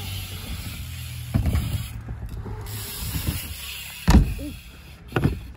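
BMX bike rolling on a wooden ramp with a steady low rumble, a knock about one and a half seconds in and a heavy thud about four seconds in.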